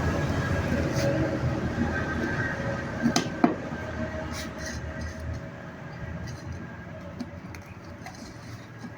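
Vehicle noise fading away, with two sharp metallic clinks about three seconds in.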